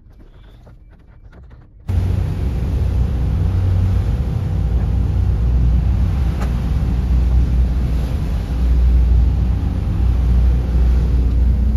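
Wind buffeting the microphone on the deck of a moving car ferry at sea: a loud, steady low rumble that starts suddenly about two seconds in, after a brief stretch of quiet.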